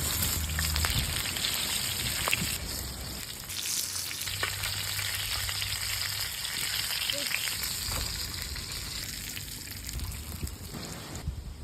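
Food frying in hot oil in a pan: a steady crackling sizzle, with a few sharp clicks as it is stirred.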